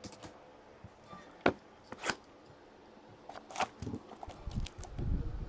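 Trading cards being handled: light rustling with a few sharp clicks, the clearest about one and a half, two and three and a half seconds in.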